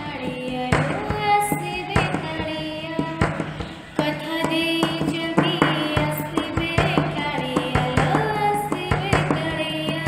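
Odia Krishna bhajan ringtone: devotional music with a melodic singing line over a steady drum beat.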